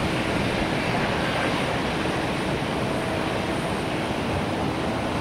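Steady rushing rumble of distant jet engines at an airport, mixed with wind on the microphone.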